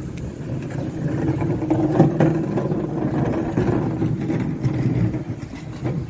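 A motor vehicle's engine running steadily close by, with a single knock about two seconds in.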